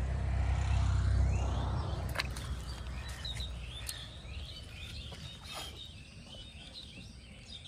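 Small birds chirping again and again, clearest from about three seconds in, over a low rumble that is loudest in the first two seconds and then fades, with a couple of sharp clicks.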